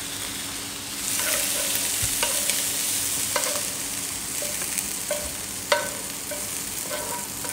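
Shrimp sizzling in a hot nonstick pan while a wooden spatula scrapes them out, with a string of short knocks of the spatula against the pan. The sizzle grows louder about a second in, and a faint steady hum runs underneath.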